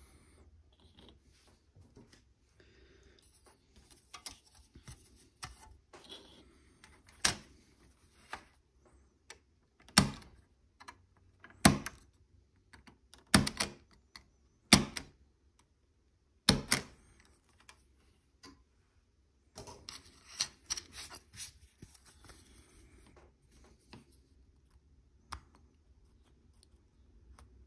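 Plastic kit parts cut from the sprue with a hobby knife: a series of sharp clicks as the blade snaps through the plastic gates, the loudest six coming between about a quarter and two-thirds of the way in. Later there is lighter scratching and clicking as the blade scrapes the part's edges clean.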